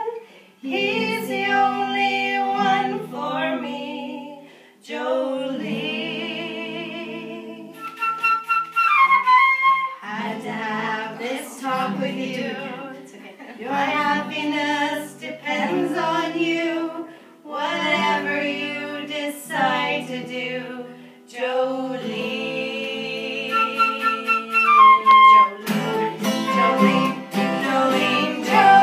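Acoustic folk band playing a song: flute, acoustic guitar and other plucked strings, with women singing in phrases. A held high note slides down twice.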